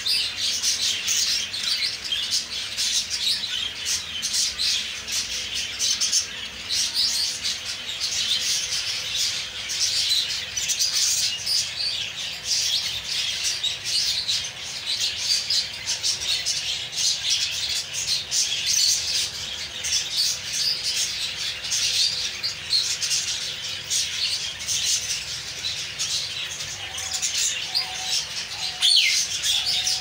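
Budgerigars chattering and chirping continuously, with a falling whistle near the end.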